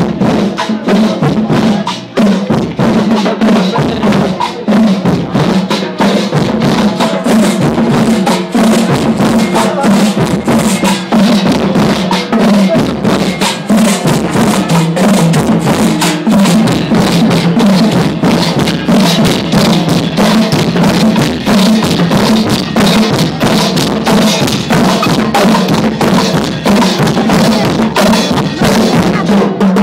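Marching band playing: brass, sousaphones among them, over snare drums and cymbals struck in a dense, steady beat.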